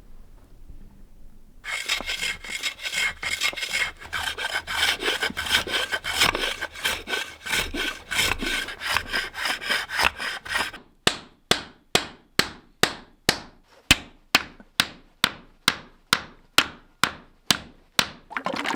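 Hand-tool work on wood: a stretch of rapid rubbing, rasping strokes, then a steady run of sharp strikes about two to three a second, each with a short ring.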